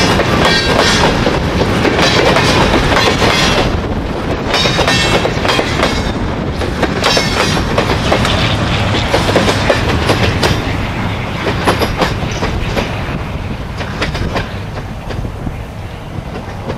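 Freight train of boxcars and covered hoppers rolling past close by: wheels clattering over the rail joints, with short high wheel squeals in the first half. The last car goes by about halfway through, and the sound then fades as the train pulls away.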